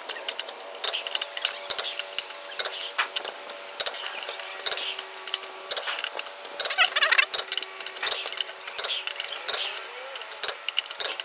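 Click-type torque wrench ratcheting, its socket clinking on the lug nuts, as a truck wheel's lug nuts are tightened to about 140 ft-lb. The metallic clicks come in quick, uneven runs throughout.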